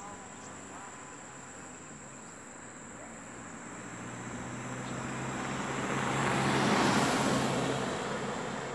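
A motor vehicle passes by, its engine and tyre noise swelling to a peak about seven seconds in and then fading. Underneath runs a steady high insect buzz.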